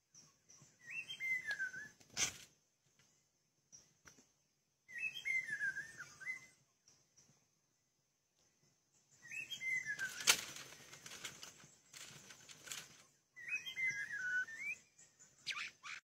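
White-rumped shama giving a short warbling, whistled phrase four times, about every four seconds, with a few sharp clicks between the phrases.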